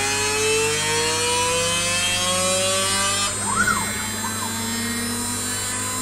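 Home-built Ooznest Ox CNC router machining 18 mm plywood: the spindle and cutter run steadily while the stepper motors whine, with a tone that slowly rises. About halfway through the sound turns hissier, and short whines rise and fall as the axes speed up and slow down.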